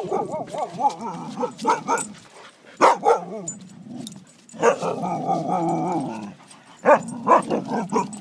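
Dogs at rough play, giving wavering calls that slide up and down in pitch, broken by several sharp barks.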